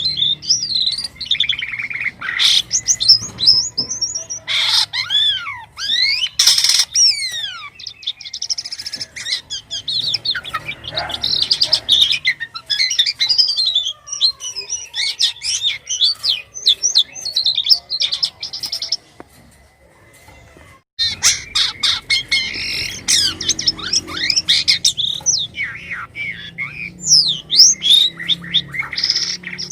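Jalak kapas starling singing a fast, varied song of chirps, whistles and quick sliding notes, with a pause of about two seconds roughly two-thirds of the way through.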